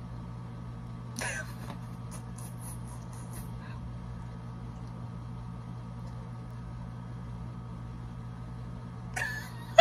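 Steady low room hum. A brief soft vocal sound comes about a second in, and a louder vocal sound starts near the end.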